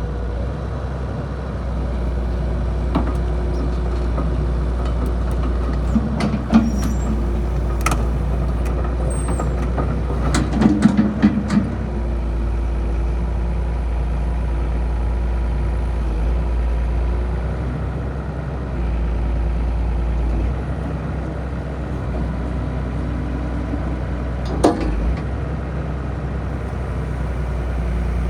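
Cat 321C excavator's 3066T turbocharged six-cylinder diesel running steadily, its low drone shifting in pitch now and then. Sharp metallic knocks come about six to eight seconds in, in a cluster around eleven seconds, and once more near the end.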